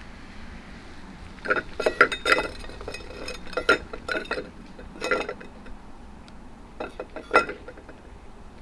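Stainless steel cat food bowl clinking and rattling against wooden deck boards as a cat eats from it and nudges it. A series of sharp metallic clinks that ring briefly, coming in irregular clusters.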